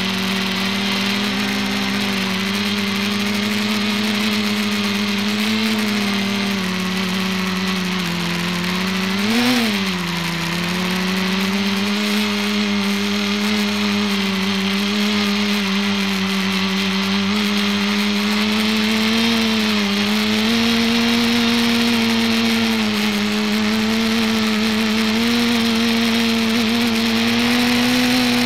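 ETFD2 flying-disc multicopter's motors and propellers droning steadily, heard close up from on board the craft, with a hiss of rushing air. The pitch swoops up and back once about nine seconds in, then sits a little higher from about twenty seconds on as throttle changes.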